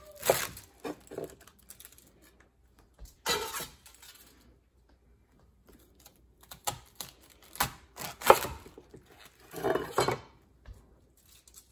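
Chef's knife slicing through small savoy cabbage heads on a wooden cutting board: crunching cuts through the leaves and knocks of the blade on the board. These come in several short bursts with pauses between.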